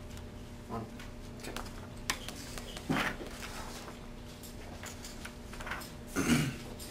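Quiet room with a steady low hum, broken by a few brief sounds of sheets of paper being handled and set down on a table; the loudest comes about six seconds in.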